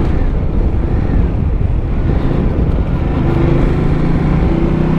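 Ducati motorcycle engine running while riding, under a heavy rumble of wind and road noise on the microphone. A steady engine note comes through more plainly in the second half.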